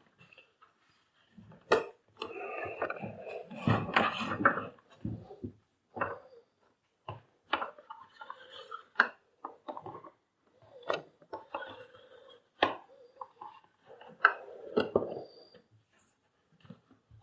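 Hard plastic vacuum-cleaner parts being handled during repair work, clicking and clattering in irregular bursts with sharp knocks.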